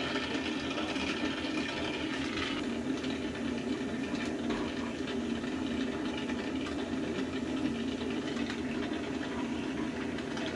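Oxy-fuel brazing torch flame hissing steadily while brazing a leak on a refrigeration evaporator coil's copper tubing.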